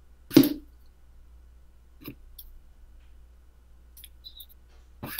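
A few short clicks and knocks: a loud one about half a second in, a fainter one near two seconds and another near the end.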